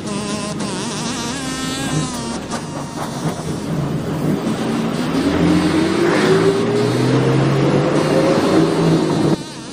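A vehicle engine accelerating, its pitch rising steadily from about halfway through and cutting off abruptly near the end, over dense background ambience with wavering pitched tones in the first few seconds.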